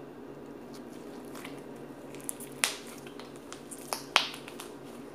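Soft, wet slime, rehydrated with water, being squeezed and kneaded in the hands, giving a few sharp squelching pops as air pockets burst; the two loudest come about two and a half and four seconds in.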